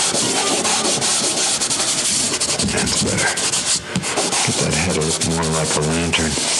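A hand rubbing hard and fast over the surface of an image being worked on: a dense, scratchy rubbing made of many quick strokes. A low humming tone comes in briefly between about four and a half and six seconds.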